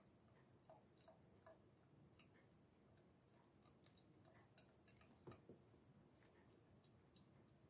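Near silence: faint room tone with scattered soft ticks and clicks, a slightly louder pair a little after halfway through.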